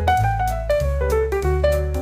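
Background music: a piano playing a quick run of notes over a bass line.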